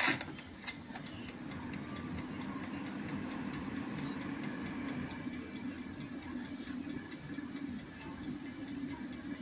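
Air fryer's clockwork timer ticking quickly and evenly as it counts down a 20-minute cook, over the steady hum of the fryer's fan running. A sharp click from the timer knob comes at the very start.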